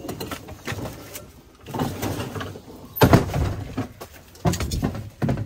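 A door being opened and handled: a run of knocks and clatters, the loudest bang about three seconds in.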